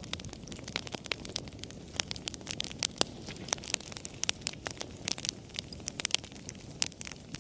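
Wood fire burning in a fireplace: irregular sharp crackles and pops, several a second, over a low steady rush of flame.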